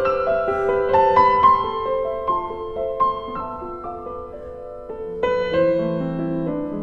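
Background piano music: a slow melody of single struck notes that ring out, with lower held notes entering about five seconds in.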